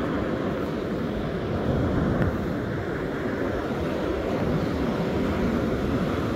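Wind buffeting the microphone over the steady rush of breaking surf.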